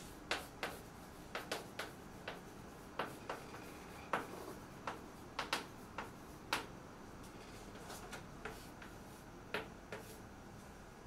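Chalk writing on a blackboard: an irregular run of sharp taps and clicks as the chalk strikes the board with each letter, several a second at first and thinning out near the end.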